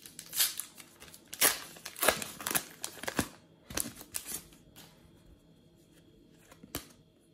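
Plastic trading-card packet being torn open and pulled apart by hand: a run of short crinkling, tearing rustles over the first four seconds or so, dying away, then a single sharp tap near the end.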